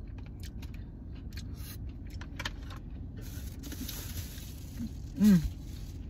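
A person chewing a mouthful of sushi, with small clicks and rustles of the plastic takeout tray, over a steady low rumble inside a car. About five seconds in comes a brief hum that falls in pitch.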